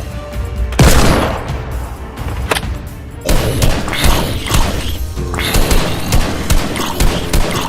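Background action music with a loud boom about a second in, then rapid volleys of shots from about three seconds on.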